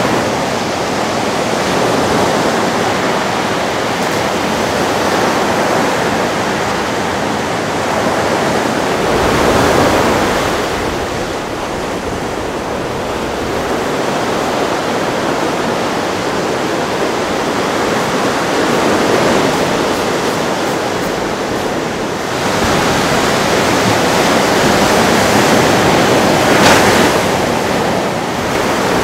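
Ocean surf: waves breaking and washing in, a steady rush that swells louder about ten seconds in and again near the end.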